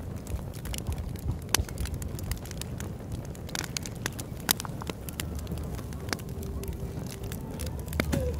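Wood campfire of split hardwood logs crackling, with scattered sharp pops; two pops, about a second and a half in and halfway through, are the loudest. A low steady rumble runs underneath.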